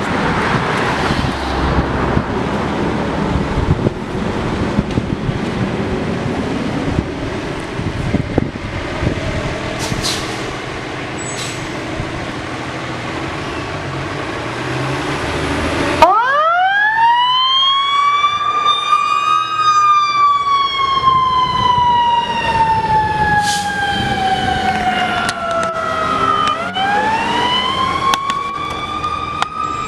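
Fire truck responding: for about the first half, loud, steady truck engine and road noise. Then a siren winds up quickly, falls slowly in pitch for several seconds, and winds up again near the end.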